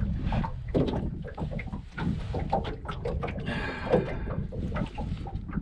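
Close handling noises while unhooking a landed striped bass: irregular clicks and knocks, with a scraping rustle a little past midway, over a low wind rumble on the microphone.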